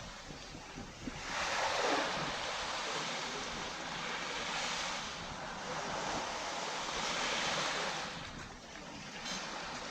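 Sea waves breaking and washing up a sandy beach, the surf swelling about two seconds in and easing off near the end.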